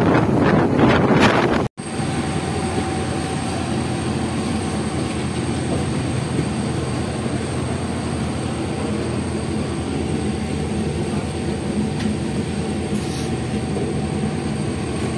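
Passenger train running along the track, heard from the doorway of a coach: a steady rumble of wheels on rail with a faint steady whine. For the first two seconds wind buffets the microphone, until it cuts off at an edit.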